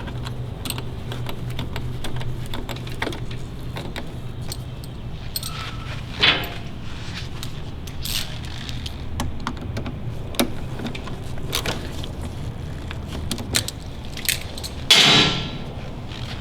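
Small metallic clicks and rattles of a Porsche 928 door lock assembly being pressed into the door and its Allen bolt screwed in with a hex key, over a steady low hum. Two louder handling noises come about six seconds in and near the end.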